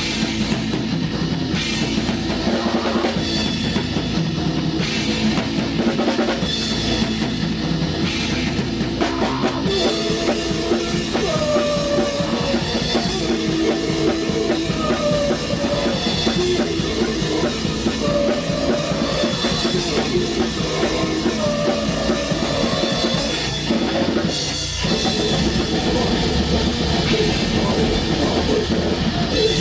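Live black metal band rehearsal: fast drum kit with heavy bass drum under distorted guitars, with a sustained melodic guitar line over the top from about a third of the way in and a momentary drop in the playing near the end.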